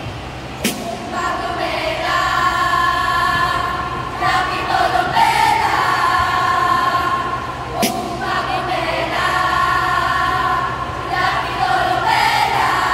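A group of girls' voices singing or chanting together in unison in long held notes, as part of a Filipino choral recitation, with a sharp clap or stamp about a second in and again about eight seconds in.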